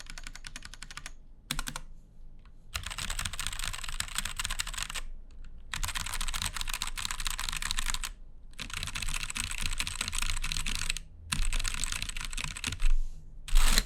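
Fast typing on a Rexus Daxa M61 60% mechanical keyboard in a CNC aluminium case with EVA foam inside, in several long runs of keystrokes broken by short pauses. The keystrokes sound damped by the foam.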